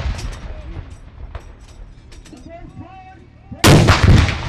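Ceremonial saluting cannon firing one round of a 21-gun salute about three-quarters of the way in: a sudden, very loud blast that rolls on and dies away slowly. At the start, the rumble of the previous round is still fading.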